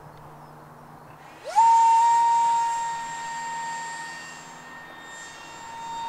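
Electric ducted fan of a 3D-printed RC seagull model spooling up about one and a half seconds in: a quickly rising whine that settles into a steady high whine, growing louder and softer as the model flies around.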